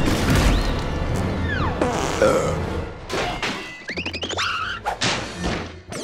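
Cartoon soundtrack of orchestral music laid over crashing and thudding sound effects, with a heavy low rumble and falling whistle-like glides in the first half. About four seconds in comes a quick run of rising warbling tones among sharp hits.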